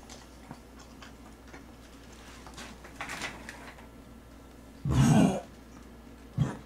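Mostly quiet room tone with faint ticks. About five seconds in, a person makes one short, loud breathy vocal sound, like a cough or heavy exhale. A brief softer one follows near the end.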